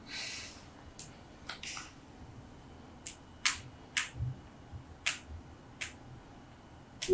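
A short rustle, then a handful of sharp, light clicks at irregular intervals, with stretches of quiet room tone between them.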